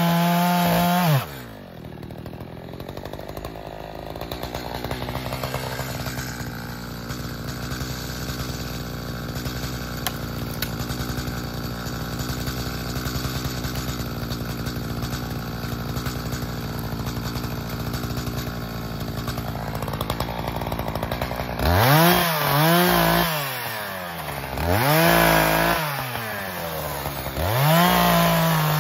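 Echo CS-4510 two-stroke chainsaw drops from full-throttle cutting to a steady idle about a second in and idles for some twenty seconds. Near the end it is revved twice in quick blips, then brought back up to full throttle to cut into a log.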